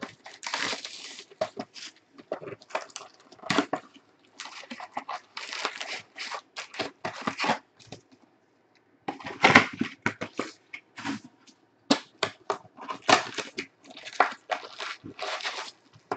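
Plastic wrap crinkling and a cardboard box of Panini Prizm basketball cards being torn open, then foil packs rustling as they are pulled out by hand, in irregular crackles with a brief pause about halfway.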